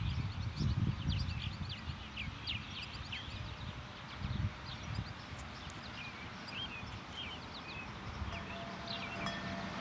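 Small birds chirping in quick, repeated short calls, over gusts of wind buffeting the microphone. Near the end a faint steady hum of a road vehicle starts.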